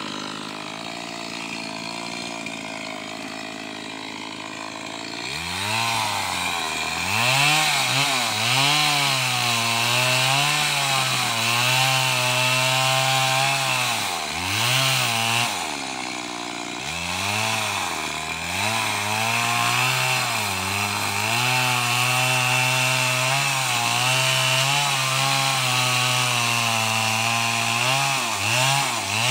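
Two-stroke chainsaw idling for about five seconds, then throttled up and cutting into timber planks. Its engine pitch rises and falls again and again as it is revved and loaded in the cut.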